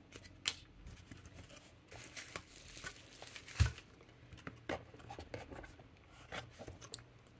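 Quiet rustling and light tapping of a parcel being unpacked by hand: plastic packaging crinkling and cards set down on a table, with one soft thump a little past halfway.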